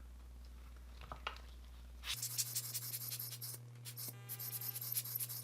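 A few soft clicks, then about two seconds in a fluttering hiss of air blown in short, rapid puffs. It is air used to drive baking soda into glue-filled cracks in a small diecast car body.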